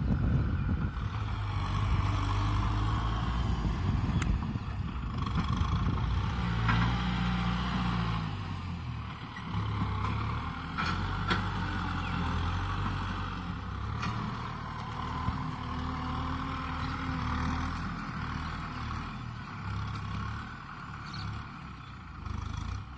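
Kubota M6040SU tractor's diesel engine running under load, its pitch rising and falling as it works, with a few sharp cracks along the way.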